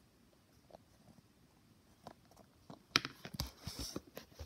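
Faint room tone, then about three seconds in a quick run of light taps and knocks as a plastic toy figure is handled and hopped against a plastic playset.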